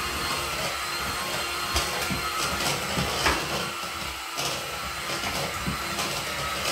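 Electric hand mixer running steadily, its beaters whirring through cookie dough in a bowl, with a few brief knocks.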